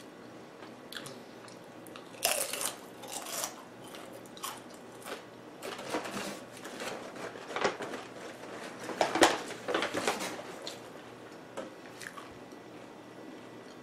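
Crunching and chewing of a crisp taco shell: a string of sharp crunchy bites from about two seconds in, the loudest near the end of the run, then only soft chewing.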